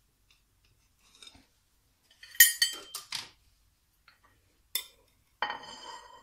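A metal knife or cake server clinking against a plate as a slice of cake is cut and lifted out: a cluster of sharp clinks about two and a half seconds in and one more near five seconds. A steady ringing tone starts shortly before the end.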